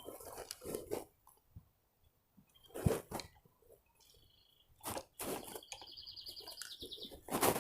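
Irregular crunching scuffs and knocks, several of them in clusters, with a short high rapid trill about six seconds in.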